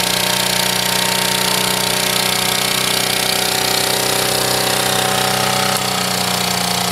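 Small Honda E40 portable generator engine running steadily at constant speed. About six seconds in there is a brief click, after which the engine note dips slightly and shifts.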